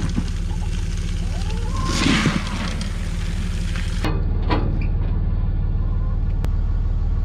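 An engine idles steadily throughout. For the first four seconds, grain feed pours from a bin hopper into a plastic pail with a hissing rush, loudest about two seconds in.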